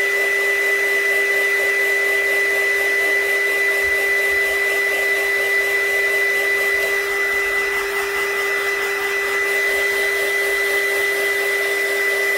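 Handheld craft heat gun running steadily: a constant rush of blown air with a steady whine, drying freshly sprayed shimmer ink.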